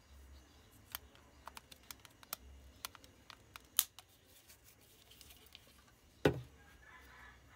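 A small hard-plastic toy figure being handled: scattered light clicks and taps of fingers and its slide switch on the plastic, then one louder knock about six seconds in.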